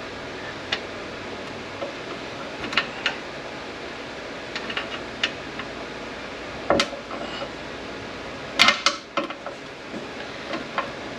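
Irregular metallic clinks and knocks of tools against steel transmission parts as a stubborn bearing is worked at on a gearbox shaft, over a steady background hiss. The loudest cluster of knocks comes a little past the middle.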